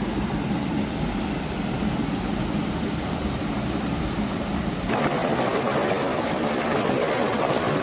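Hot-spring mountain creek rushing over rocks, a steady noisy flow. About five seconds in the rush turns brighter and fuller, as of water pouring over a small waterfall.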